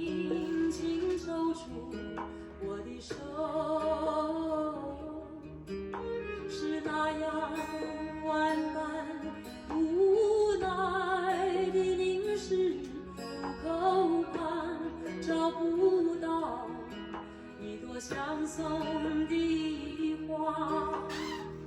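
A song playing through a laptop's built-in speakers: a sung vocal over plucked acoustic guitar.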